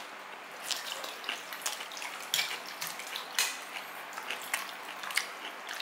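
Eating sounds close to the microphone: irregular sharp clicks and clinks, a few a second, over a steady hiss.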